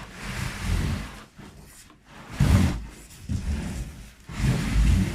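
Unboxing handling noise: packaging and parts being rubbed, scraped and shifted, in three louder surges with dull knocks.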